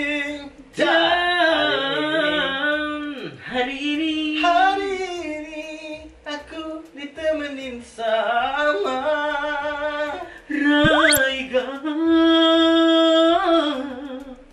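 Men singing unaccompanied, long held notes with wavering, ornamented runs in an Indian-style melody. About 11 seconds in, a quick rising whistle-like sweep cuts across the voices.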